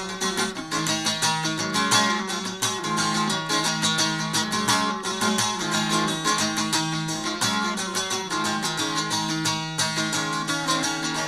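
Bağlama (saz) strummed rapidly in an instrumental break, with a steady low drone of open strings under the melody.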